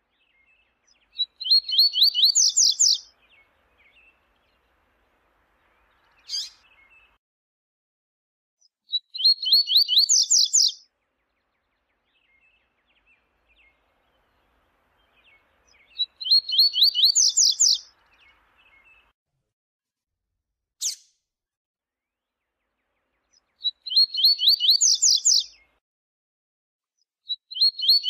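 Double-collared seedeater (coleiro, Sporophila caerulescens) singing: short, fast trilled phrases of about two seconds each, repeated about every seven seconds, four times plus a fifth starting near the end. A single sharp note falls between two of the gaps.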